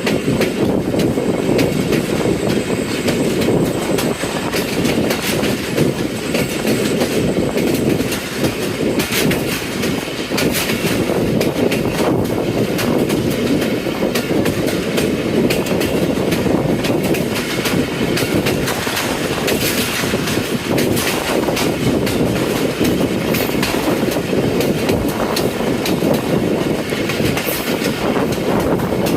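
Passenger train carriages rolling steadily, with wheels clattering over the rail joints in a dense run of clicks over a continuous rumble.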